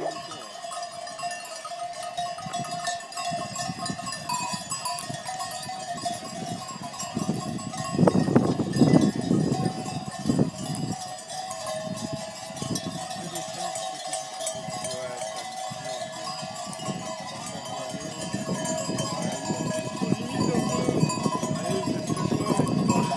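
Many bells on a moving flock of sheep, clanking and ringing together without a break. A louder stretch of low rumbling noise comes about eight seconds in, and again near the end.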